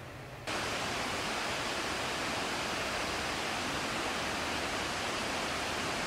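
Steady rushing of a mountain river flowing over rocks, an even wash of water noise that starts suddenly about half a second in.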